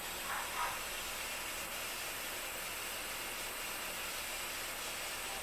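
Jeweller's soldering torch flame hissing steadily while easy solder is flowed into silver bezel-cup joints. Two brief faint higher sounds come about half a second in.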